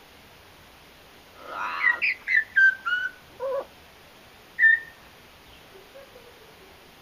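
Blue-fronted amazon parrot whistling: a quick run of short notes stepping down in pitch, ending on a lower note, then one more short whistle a second later.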